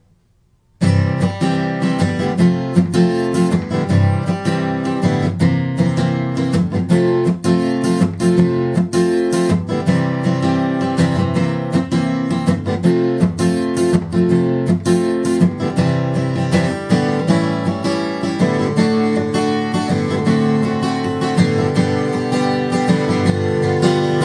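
Background music of a strummed acoustic guitar playing a steady run of chords, starting about a second in after a brief quiet gap.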